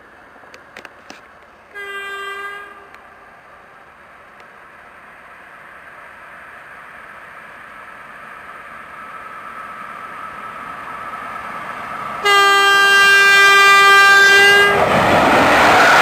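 Electric passenger locomotive approaching and sounding its horn: a short toot about two seconds in, then a long loud blast of about two and a half seconds near the end, the Polish Rp1 'attention' signal. Under the horn the train's rumble grows steadily until the locomotive and coaches rush past.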